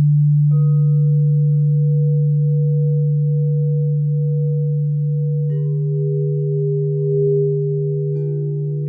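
Crystal singing bowls ringing: a low bowl hums steadily underneath while three higher bowls are struck in turn, about half a second, five and a half seconds and eight seconds in, each a clear pure tone that sustains and overlaps the others.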